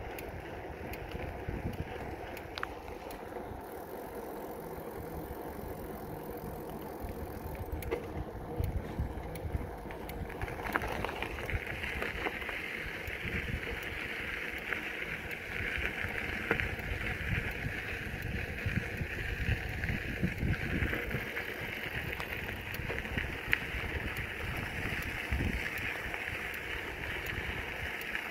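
Bicycle riding along a trail: a steady rolling rumble from the tyres with uneven wind buffeting on the microphone. About eleven seconds in, a steady higher hiss joins and carries on.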